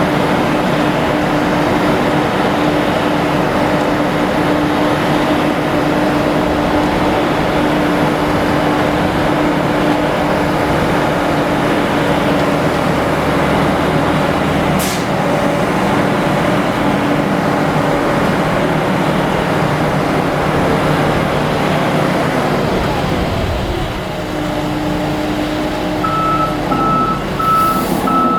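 Concrete mixer truck's diesel engine running steadily, with a single sharp click about halfway through. Near the end the truck's reversing alarm starts beeping over and over.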